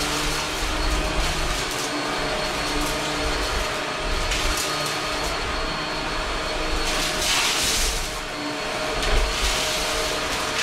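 Upright vacuum cleaner running steadily on carpet as it is pushed back and forth, a constant motor hum under a rushing hiss that swells louder twice near the end.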